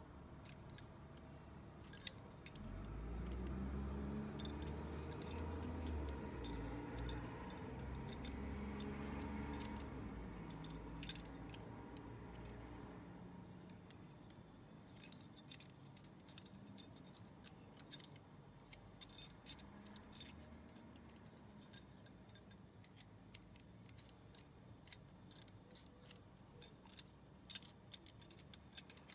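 Steel ring of a Hanayama Cast Box puzzle clinking and scraping against the cast metal box as it is worked through the slots by hand: many small, sharp metallic clicks, coming thicker in the second half. A low rumble runs underneath for the first dozen seconds.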